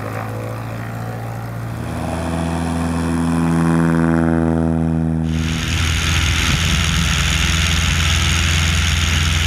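Piper Super Cub bush plane's piston engine and propeller on its takeoff run, growing louder as it comes past close by. About five seconds in the sound changes to the steady engine drone under rushing wind heard inside the cockpit.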